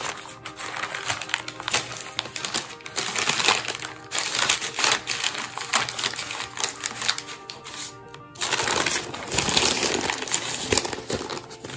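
A sheet of baking paper crinkling and rustling as it is handled and peeled back off a rolled pie crust, in irregular bursts, louder near the middle and again near the end. Soft background music plays underneath.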